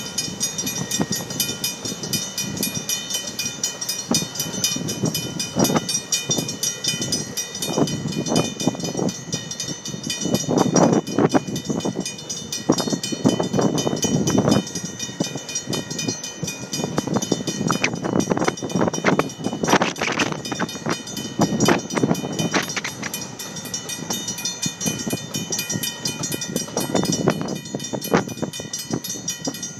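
Railroad grade-crossing bell ringing steadily as a train of vintage passenger coaches rolls past, its wheels knocking irregularly over the rail joints.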